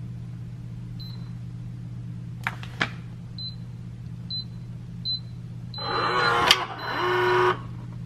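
Schlage Connect touchscreen deadbolt: a string of short high beeps as keys on its keypad are pressed, then about two seconds of buzzing whir in two parts, with a click between them, from the lock's motor driving the deadbolt.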